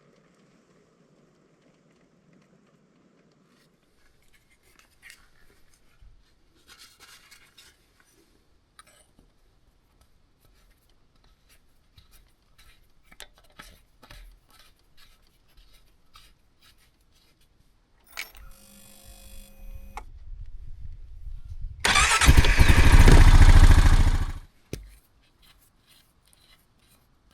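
A few faint clicks and handling noises, then the Honda Foreman 520 ATV's single-cylinder engine is started on fresh oil: a short build-up, then it runs loud and steady for about three seconds before cutting off suddenly.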